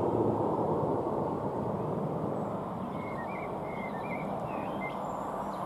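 Steady low rumble of an approaching train hauled by a British Rail Class 92 electric locomotive, still some way off. A few short bird chirps come about three to five seconds in.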